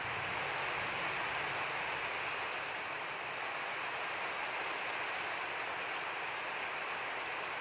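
A steady, even hiss, with no separate sounds standing out from it.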